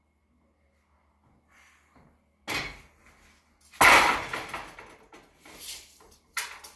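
A long wooden board is set down on the metal rails of a miter saw stand. There is a sharp knock about two and a half seconds in, then a loud clattering thud just over a second later that rings on briefly, then two lighter knocks near the end.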